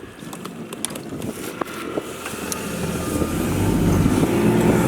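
Boat motor running, getting louder from about halfway. A few light knocks come before it.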